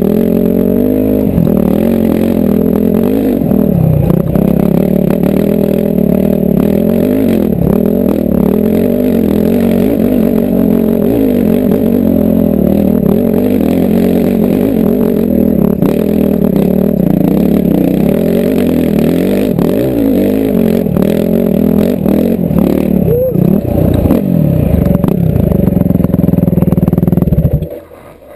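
Dirt bike engine running hard on a steep, rough trail climb, the revs rising and falling with the throttle, with knocks from the bike over rough ground. The engine sound drops away suddenly near the end.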